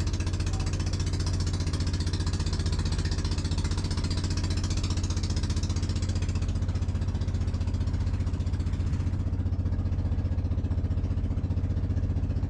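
Outrigger fishing boat's engine running steadily underway, a fast, even low chugging.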